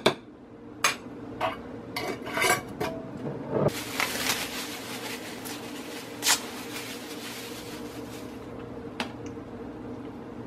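Metal spoon and dishes clinking and clattering on a kitchen counter: a string of sharp clinks in the first few seconds, then a rustling noise lasting about five seconds with a single knock in the middle of it, over a steady low hum.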